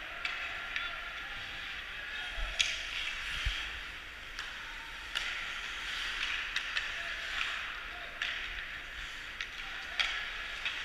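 Ice hockey play: skate blades scraping and carving on the ice in uneven swells, with irregular sharp clacks of sticks and puck, the loudest a little over two seconds in.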